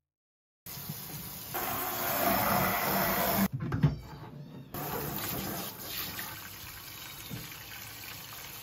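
Water running from a shower hose into a plastic washbasin, filling it. The flow is louder at first, breaks off briefly around the middle, then runs on steadily.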